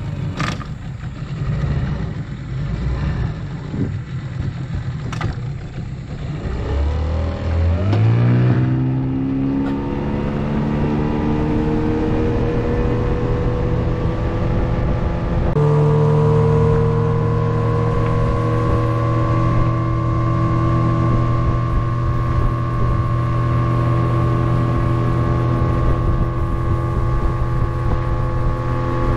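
A small boat's outboard motor runs low at first, with a few sharp knocks. About eight seconds in it is throttled up and its pitch climbs as the boat gets under way. It then runs steadily at speed, stepping up once more about halfway through.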